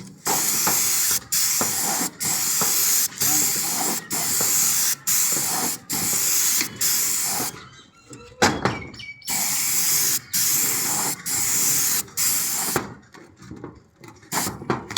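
Paint sprayer spraying in repeated passes: a steady loud hiss cut off briefly about once a second, with a longer pause about eight seconds in.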